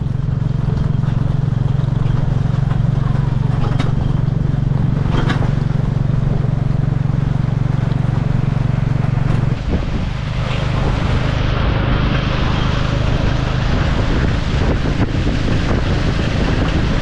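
Tuk-tuk's motorcycle engine running steadily under way, a low drone with road and wind noise over it. The engine note dips briefly about ten seconds in, then picks up again with more hiss.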